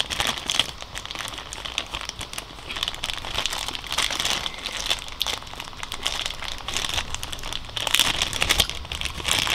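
Thin clear plastic packaging bag crinkling continuously as hands work it open to get out a USB charging cable, a dense run of small crackles that grows a little louder about eight seconds in.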